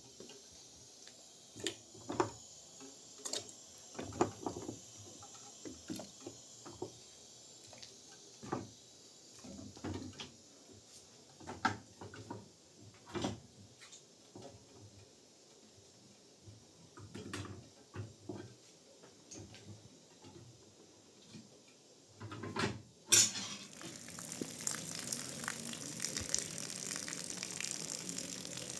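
Kitchen pots, pans and utensils clinking and knocking in scattered strokes. Near the end comes a loud clatter, then a steady sizzle starts, like food going into hot oil.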